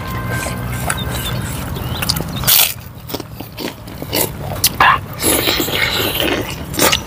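Crunchy bites into kerupuk crackers and chewing, close to the microphone, with sharp crunches scattered through. Underneath runs a low steady hum that stops about two and a half seconds in.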